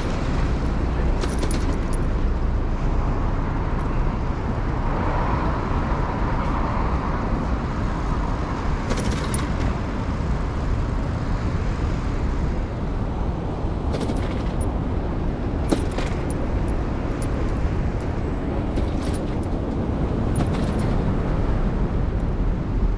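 Steady rushing noise on a bicycle-mounted camera riding through city streets: wind and rolling noise from the bike mixed with road traffic. A few short, sharp clicks stand out.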